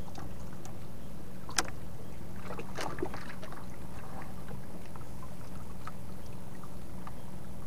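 Steady low drone of a small fishing boat's engine running, with a sharp knock about one and a half seconds in and a few clicks and taps around three seconds in.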